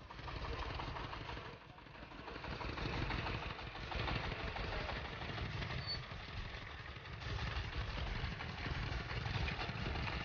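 Small engines of two-wheel walking tractors running steadily while hitched to trailers loaded with sedge.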